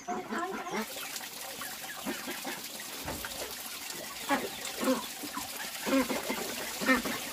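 Water splashing and pouring as a metal pot is rinsed by hand and tipped out. A chicken clucks about four times in the second half.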